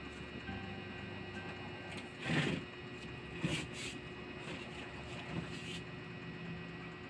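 Low-volume television sound from a DVD menu's looping movie preview clips, over a steady electrical hum. A few short, noisy swells of sound effects come about two and a half, three and a half and five and a half seconds in.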